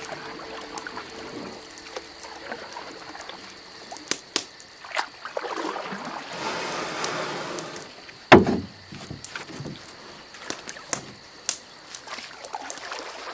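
Small lake waves lapping and sloshing, swelling for a couple of seconds near the middle, with scattered light clicks and one sharp thump a little past halfway.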